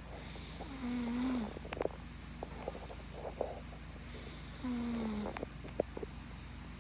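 Snoring from a very young sleeper: two long snoring breaths about four seconds apart, each with a low steady tone, with small clicks and breath noises between them.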